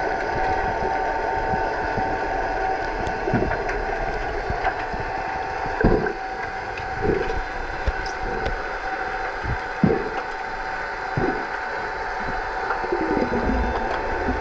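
Underwater sound of an underwater hockey game, heard through a submerged camera: a steady hum from the pool's machinery, many sharp clicks and knocks from the play, and a few louder dull thumps of churned water about six, seven and ten seconds in.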